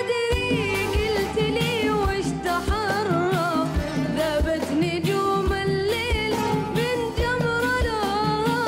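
A boy singing a Gulf Arabic song in long, ornamented melismatic phrases with a wavering pitch. A live band accompanies him with a steady drum beat.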